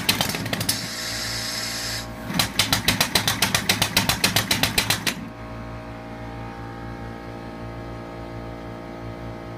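Home-built six-cylinder radial compressed-air engine running, puffing rapidly at about seven puffs a second. A hiss briefly replaces the puffing near the start, then the puffing resumes and stops about five seconds in, leaving a steady low hum.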